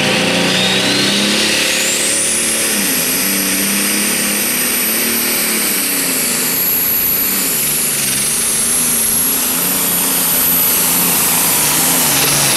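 John Deere Pro Stock pulling tractor's turbocharged diesel engine running under full load as it pulls the sled. A high turbo whistle climbs over the first two seconds and then holds, above a wavering engine note.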